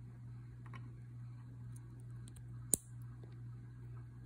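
Small plastic clicks of LEGO minifigure pieces being handled, with one sharp click about two and a half seconds in as a battle droid arm snaps onto the torso. A steady low hum runs underneath.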